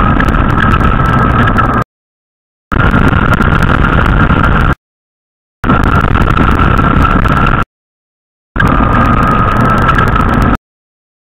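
Quad bike (ATV) engine running steadily while riding, a low rumble with a steady whine above it. The sound comes in four stretches of about two seconds, each cut off abruptly into dead silence.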